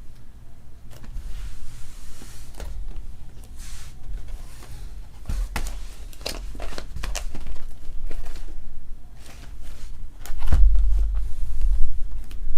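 Trading cards and their packaging being handled: scattered rustles and clicks, with a heavy low thump about ten and a half seconds in.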